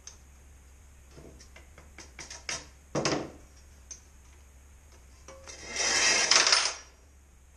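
Hand-handling noises on a workshop lift: a few light clicks and knocks, a short scrape about three seconds in, and a louder rubbing scrape lasting about a second near the end.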